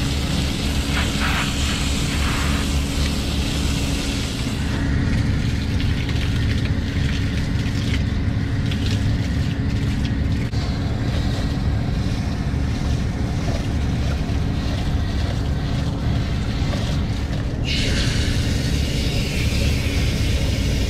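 Rooftop air-conditioning unit running with its compressors and condenser fans on: a steady low hum and rumble. A hiss over it drops away about four seconds in and comes back near the end.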